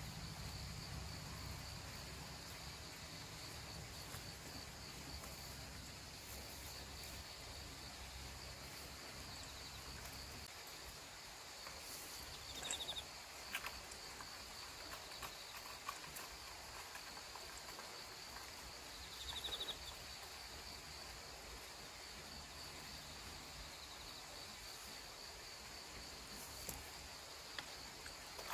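Insects chirring steadily in a continuous high-pitched pulsing drone, with a low rumble underneath that fades out about a third of the way in. A few faint clicks and two brief chirps come about halfway through.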